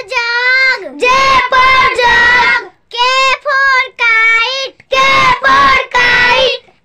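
A child's high voice singing an alphabet phonics song in short sung phrases about a second long, with brief pauses between them.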